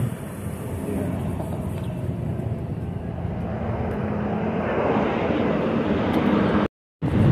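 Street traffic with a jet airplane passing overhead, its low rumble swelling steadily to its loudest near the end, where the sound cuts out abruptly.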